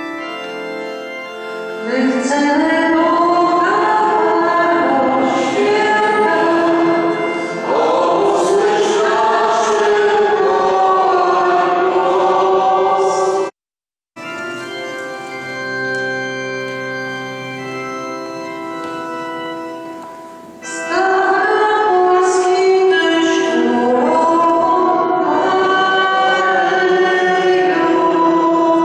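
Church organ accompanying voices singing a hymn. About halfway through the sound cuts out for a moment, then the organ plays on with little singing for several seconds before the voices come back.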